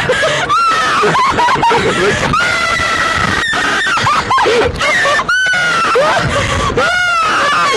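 A young woman screaming in fright again and again, long high wavering screams, with a man laughing beside her and wind rushing past, on a slingshot bungee ride.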